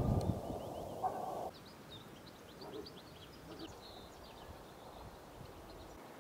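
Faint outdoor birdsong: many short, high chirps from small birds. A brief low rushing noise in the first second and a half cuts off suddenly.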